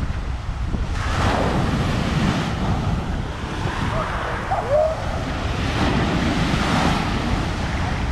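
Sea waves washing onto a beach, swelling about a second in and again around six to seven seconds, with wind buffeting the microphone.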